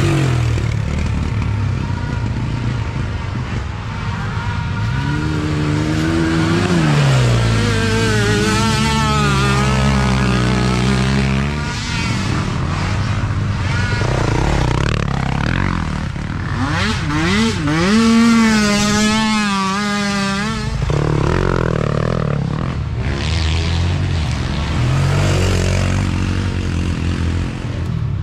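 Mini ATV engine running hard on a dirt trail, its pitch rising and falling with the throttle. Near the middle a second engine, from a dirt bike close by, revs up and down higher and faster.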